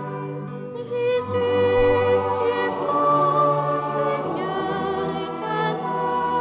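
Choir singing a Taizé chant, several voices holding notes in harmony.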